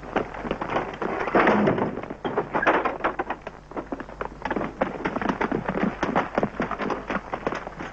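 Running footsteps of several men: a fast, irregular crunching patter over rough ground and undergrowth.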